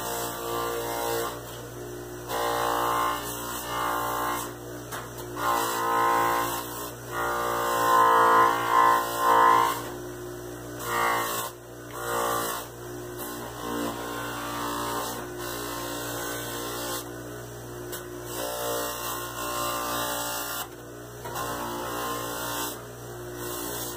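Bench buffer running with a steady hum and whine while a dyed leather sheath is held against its buffing wheel loaded with brown tripoli; the sound swells and falls in stretches as the leather meets the wheel, loudest about eight to ten seconds in.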